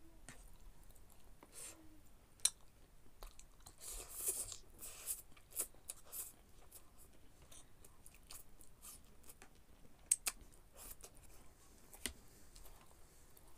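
Close-miked eating of spicy noodles: chewing and slurping, with a few hissy slurps about four to five seconds in and several sharp clicks scattered through.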